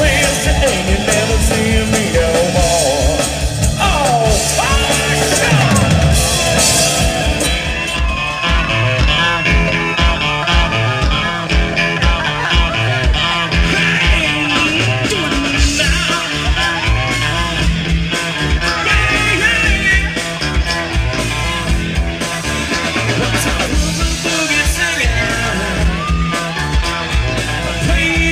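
A rock band playing live, with electric guitar, bass, drums and a lead singer. About eight seconds in, the sound switches abruptly to another live song.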